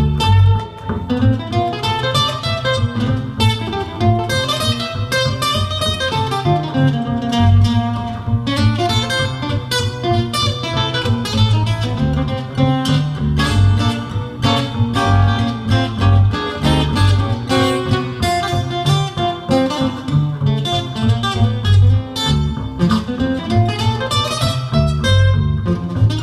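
Acoustic guitar and plucked upright double bass playing an instrumental passage with no singing, the guitar playing quick runs of notes over the bass line.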